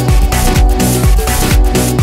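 Electronic dance music with a steady beat, about two bass thumps a second.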